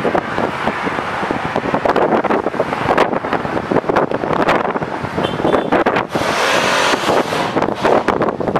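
Wind buffeting the microphone: a ragged, gusty rushing noise, with a brighter, hissier gust for about a second and a half about six seconds in.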